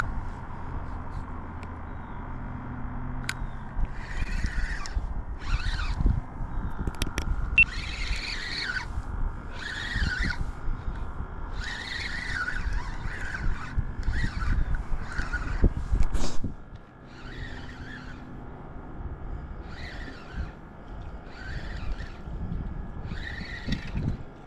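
Steady low rumble of road traffic, with a repeated short scratchy squeak about every second or so through most of the stretch.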